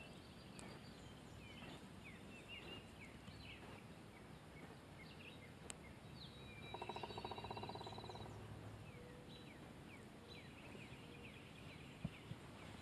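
Faint outdoor quiet with small birds chirping now and then. About halfway through there is a short buzzing trill, and near the end two light clicks.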